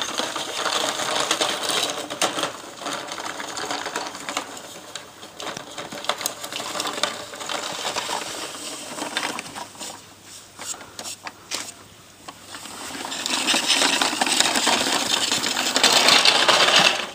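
Plastic toy shopping trolley rattling as it is pushed along, its plastic wheels and basket clattering over the ground. It grows louder for a few seconds near the end.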